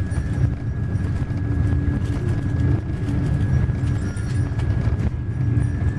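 Steady low rumble of a moving vehicle heard from inside its cabin, with a faint steady high whine over it.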